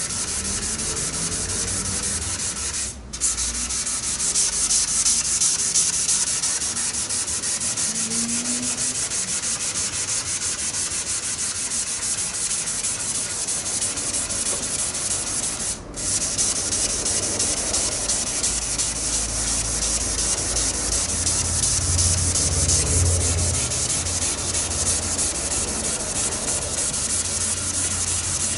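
Abrasive sanding of primer surfacer on a car's steel roof: a steady scraping that stops twice for a moment, about 3 and 16 seconds in. A low hum joins under it in the second half.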